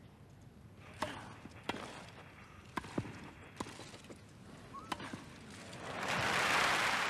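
Tennis rally on a grass court: a serve and about half a dozen sharp racket strikes and ball bounces over the first five seconds. Then the crowd applauds, swelling to the loudest part near the end.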